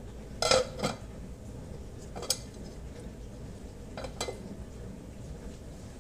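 Kitchenware being handled, clinking and knocking in short sharp clatters: a double clatter about half a second in (the loudest), another just after two seconds, and a quick pair around four seconds.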